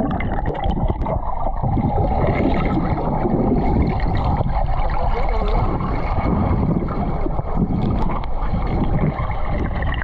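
Underwater sound of a freshwater pool heard from a submerged action camera: a dense, muffled rush of water with bubbling.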